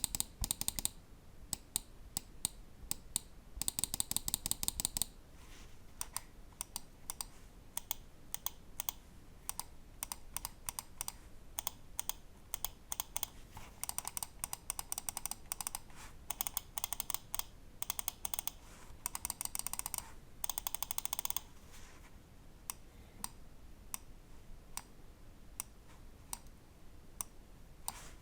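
Ajazz AJ159 Apex gaming mouse switches clicking: many separate sharp clicks, broken three times by runs of rapid clicks, each lasting a second or two.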